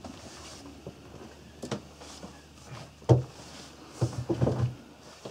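Footsteps and knocks on a narrowboat's cabin floor: a few scattered thuds, the loudest about three seconds in, then a quick run of knocks about a second later.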